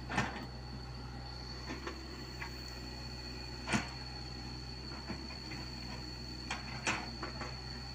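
Komatsu PC75UU mini excavator's diesel engine running steadily under a steady high whine, with several sharp metallic clanks from the bucket and arm as it digs and moves soil; the loudest clank comes nearly four seconds in.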